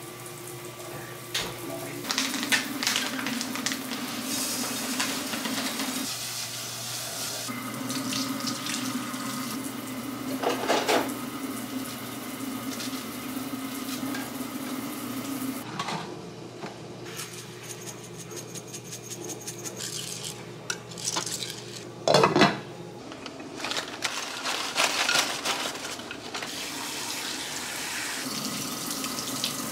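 Kitchen handling sounds: dishes, a pot and utensils clinking and clattering over a steady low hum, with one loud clatter about two-thirds of the way through. Near the end a tap runs over green beans in a steel sink.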